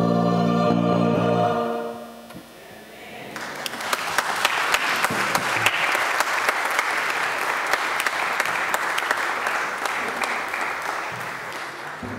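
A choir with piano and bass guitar holds its final chord, which dies away about two seconds in. After a short pause the congregation applauds, the clapping fading near the end.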